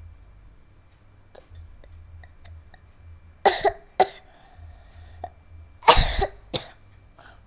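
A person coughing in a small room: two short coughs about three and a half seconds in, then two more about six seconds in, the first of this second pair the loudest. The coughing is set off by trying a trick meant to cause a nosebleed.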